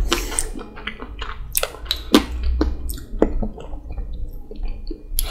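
Close-miked chewing of a bite of chocolate-coated raspberry ice cream bar: irregular wet mouth clicks and smacks over a low rumble.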